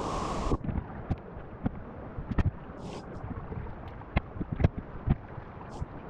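Scattered short knocks and scuffs of a person clambering over creek rocks with a handheld camera pole, over a steady rush of wind on the microphone and flowing creek water.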